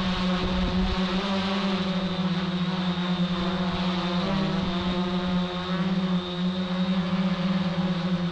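Hexacopter's electric motors and propellers humming steadily, heard through the aircraft's own camera microphone, with a slight wobble in pitch about four seconds in.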